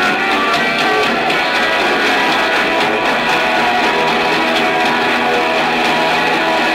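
Punk rock band playing live, guitars to the fore over a dense, steady wall of sound. Amateur concert recording with very little bass.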